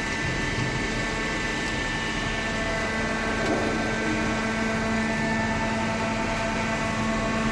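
Machinery running steadily: a constant motor hum with several unchanging tones.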